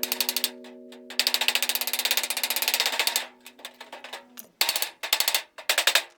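Rapid mechanical clicking in several short runs, over a held musical chord that fades out partway through.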